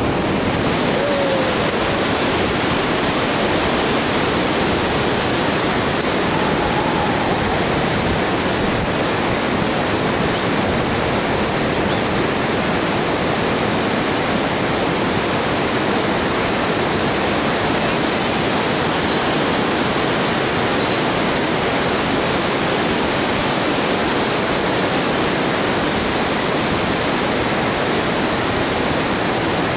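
Whitewater river rapids rushing steadily, an even, unbroken noise of churning water.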